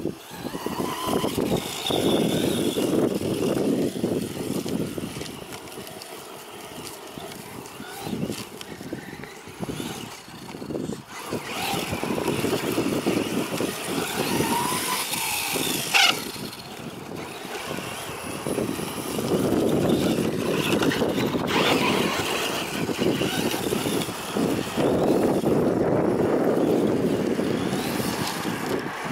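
DF-Models Desert Truck RC model running across a ploughed field, its motor whining up and down in pitch as it speeds up and slows, over a rushing noise that swells and fades. A single sharp knock comes about halfway through.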